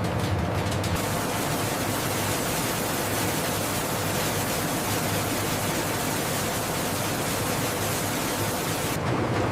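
A steady, even rushing hiss that starts about a second in and stops shortly before the end, with rhythmic mechanical clicking before it.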